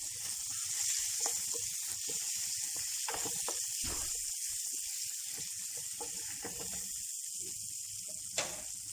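Onion and tomato frying in oil in a pan, with a steady sizzle and a few faint ticks. A single sharp click comes near the end.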